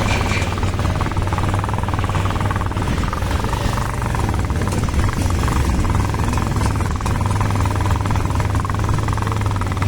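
Motorcycle engine running steadily while riding along a road, a constant low hum under rushing wind noise on the microphone.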